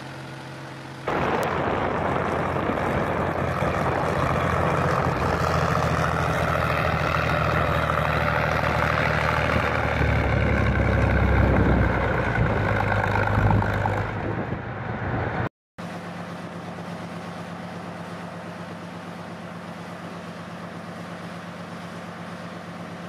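Heavy diesel engine of an ATT (izdelie 401) tracked artillery tractor, heard from inside its cab. It idles, then about a second in it jumps to a loud, steady run under load as the tractor drives, with the engine note shifting a little near the middle. After a sudden cut it idles again, quieter and steady.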